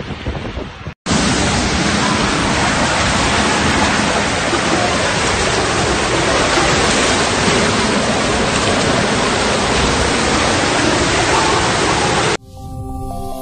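Floodwater torrent rushing down a street, a loud steady rushing of water, after a brief break about a second in. It cuts off abruptly near the end, giving way to music.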